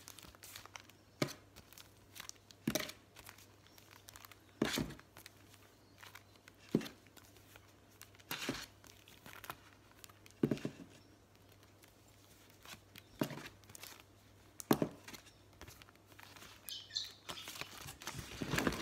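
Packaged stencils being handled and laid down one after another: a brief rustle of the plastic packaging every second or two, with quiet between.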